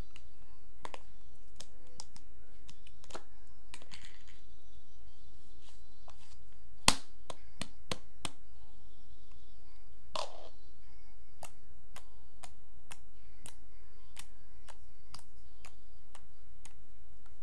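Hands squishing and poking soft slime, giving scattered sharp clicks and pops about one or two a second, with one louder pop about seven seconds in.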